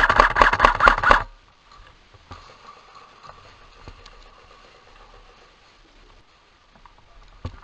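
Airsoft electric gun firing a rapid full-auto burst of about a second, followed by a few seconds of low background with faint ticks; another burst starts right at the end.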